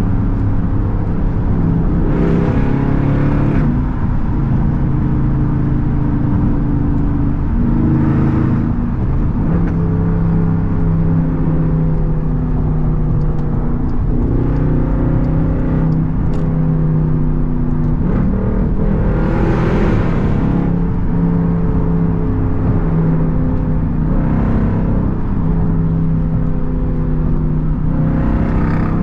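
Straight-piped SRT Jeep Grand Cherokee V8 exhaust, heard from inside the cabin while cruising on the highway. The engine note steps up and down in pitch several times and swells into a few short, louder surges, the strongest about two-thirds of the way through.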